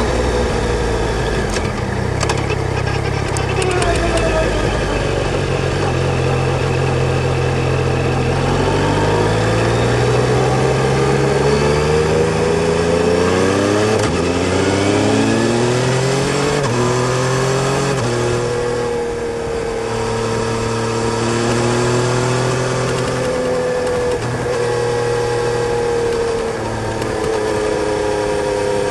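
Yamaha Tracer 900 GT's three-cylinder engine under way. Its note climbs as the bike accelerates, drops sharply at two upshifts about halfway through, then settles into a steady cruise.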